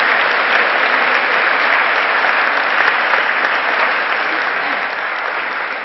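Audience applauding, a steady clapping that starts to die down near the end.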